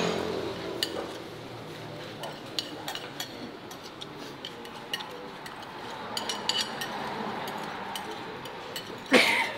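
Metal spoons clinking and scraping on ceramic plates as rice is scooped up and eaten fast, with a louder burst of noise near the end.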